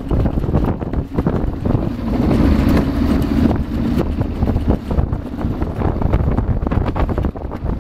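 Wind buffeting the microphone on a sailboat under way: a loud, uneven rush in gusts, strongest around the middle.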